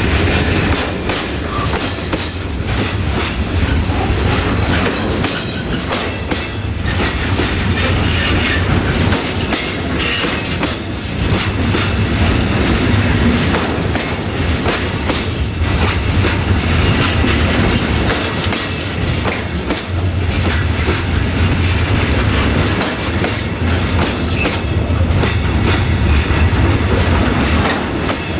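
Freight train of curtain-sided, tarpaulin-covered goods wagons rolling past at close range, steel wheels clattering over the rail joints in a continuous run of clacks over a steady low rumble.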